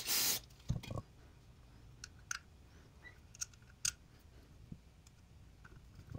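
A brief hiss of an aerosol cleaner spray that cuts off about a third of a second in, then scattered light clicks and taps of small metal brake parts being handled.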